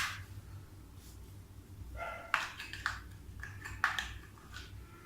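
Plastic construction toy pieces being handled and set in place: a few sharp clicks and short clatters over a faint low hum.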